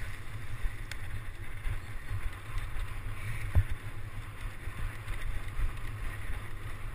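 Wind rumbling on the microphone of a camera on a mountain bike ridden fast over a dirt trail, with the bike knocking and rattling over bumps; one sharper knock about three and a half seconds in.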